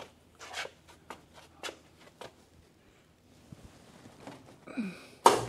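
A few faint knocks and shuffling steps, then near the end a loud clunk as a switch is thrown, and a steady electrical hum starts: a 20-horsepower phase converter being switched on.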